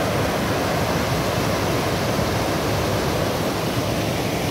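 Mountain stream cascading over boulders: a steady rushing of water.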